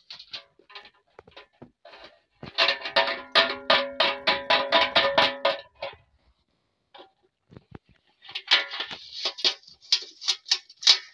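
A dog eating from a large metal bowl: rapid clinks and knocks of muzzle and food against the metal, with the bowl ringing, in two long runs.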